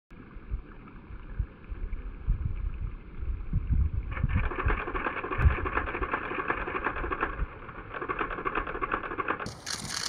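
Outdoor river-bank ambience through a camera microphone. Low wind buffeting thumps on the microphone for the first few seconds, and from about four seconds in a dense hiss, most likely the running water of a shallow stony river. Near the end the sound changes abruptly to a brighter hiss with a steady high tone.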